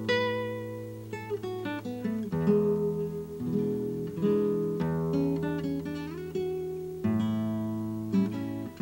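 Solo acoustic guitar played fingerstyle: plucked melody notes and chords over bass notes, each ringing and fading before the next, with a new bass note about every two seconds.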